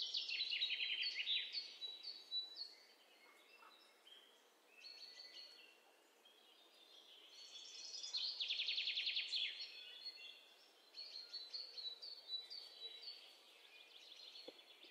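Small birds singing in the background: two bursts of rapid, high trills that fall in pitch, about a second in and again about eight seconds in, with scattered short chirps between them.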